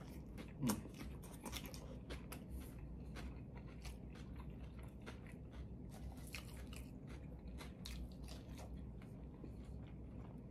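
Close-miked chewing of a homemade cheeseburger with lettuce, onion and tomato on a soft bun: many short wet crunches and mouth clicks. One louder sound comes just under a second in.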